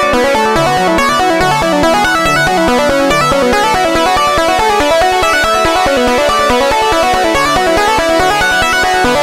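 Make Noise eurorack modular synthesizer playing a sequenced patch: a busy run of short notes stepping up and down over a fast, even pulse in the low end.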